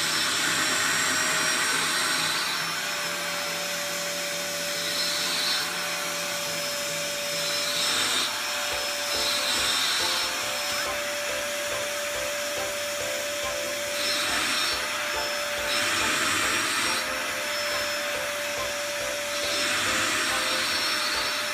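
Canister vacuum cleaner running steadily, its hose nozzle worked over a cat's fur. The hiss of the airflow swells and eases every few seconds as the nozzle moves.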